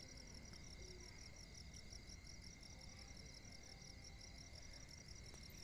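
Near silence: faint room tone with a thin steady high whine and a fast, even, high-pitched pulsing at about eight pulses a second.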